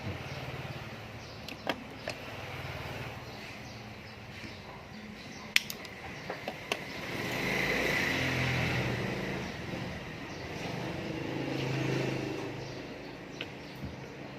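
A motor vehicle running past, its sound swelling and fading twice, with a few sharp clicks scattered through it.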